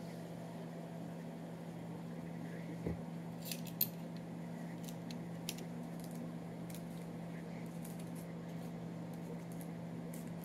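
Faint, scattered clicks and light taps of crisp radish chips being picked up and turned over on a lined baking sheet with fingers and metal tongs, over a steady low hum.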